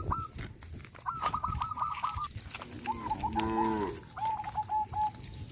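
A cow moos once, a short call of about a second starting near the three-second mark, over quick runs of repeated high bird chirps.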